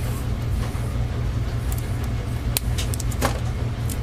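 A steady low hum throughout, with a few short crackles and a brief rasp about three seconds in from a piece of adhesive tape being pulled off and handled.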